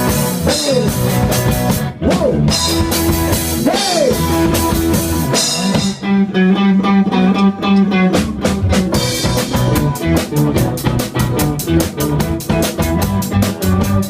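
A band playing live on drum kit, guitar and bass. The drum hits drop out for about two seconds near the middle over held bass notes, then come back as fast, evenly spaced hits.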